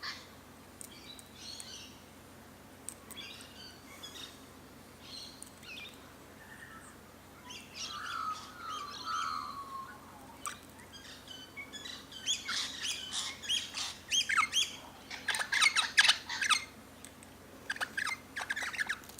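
Birds calling around a feeder: scattered short high chirps and a few falling whistled notes, then, from about twelve seconds in, a loud rapid run of chattering, squawking calls.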